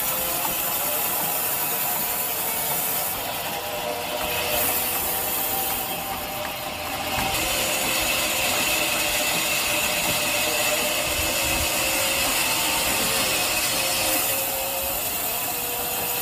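Large vertical band saw ripping lengthwise through a thick squared timber block, running steadily under load. The tone of the cut shifts a few times as the block is fed through.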